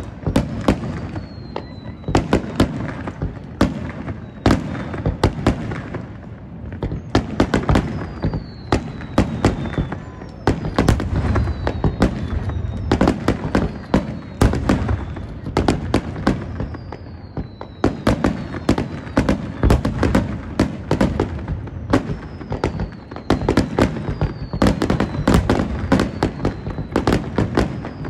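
Aerial fireworks display: a rapid, continuous run of sharp bangs and crackles from bursting shells over low booms, with several high whistles that fall in pitch.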